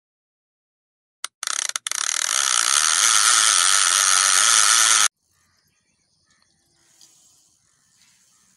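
Intro sound effect: a few sharp clicks, then a loud rushing hiss that swells and cuts off abruptly about five seconds in. Faint outdoor ambience follows.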